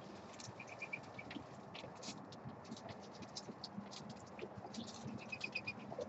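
Doves pecking and shuffling in seed on a wooden platform feeder: an irregular scatter of small scratches and clicks. Twice, about half a second in and again near five seconds, a small bird gives a quick run of short, even, high chirps.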